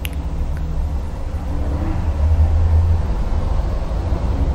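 A steady low rumble, with a sharp click right at the start and a fainter tick about half a second in.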